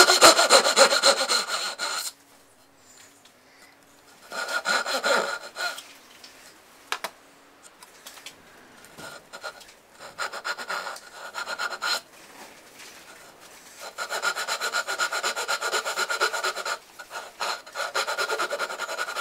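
Japanese back saw cutting a dovetail in a wooden board, in several runs of quick, short strokes with pauses between.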